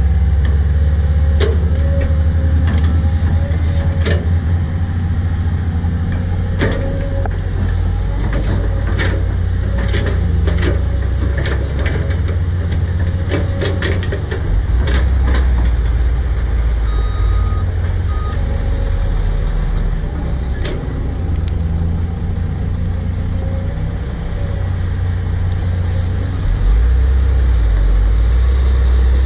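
Cat 320D L hydraulic excavator's diesel engine running under load while it digs, with repeated sharp knocks and clanks from the steel bucket working into soil and roots through the middle. Near the end it gets louder as the loaded bucket is swung up.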